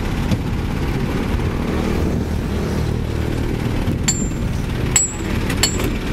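Isuzu Elf dump truck's diesel engine running at a steady low rumble. In the second half, a metal hand tool strikes metal at the rear wheel: about four sharp, ringing clinks.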